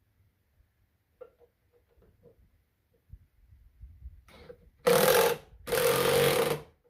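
Socket ratchet on a wobble extension, with a few faint clicks early, then two loud runs of rapid clicking, each about a second long, as the box's mounting fasteners are run down.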